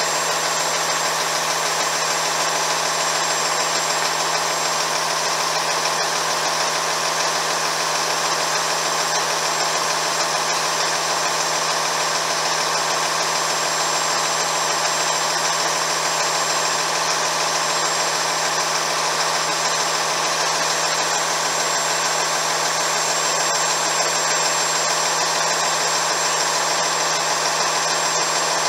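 Diesel engine running steadily at a constant speed, with a steady low hum and a hissing top end and no change in speed.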